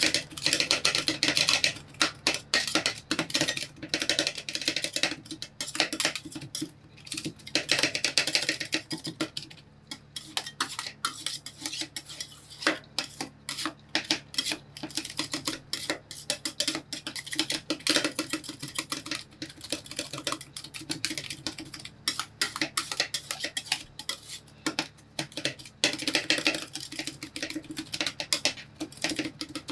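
Two metal spatulas rapidly chopping and clacking against a steel cold plate, with scraping strokes in between, as crushed Cheetos are chopped into rolled ice cream base while it freezes.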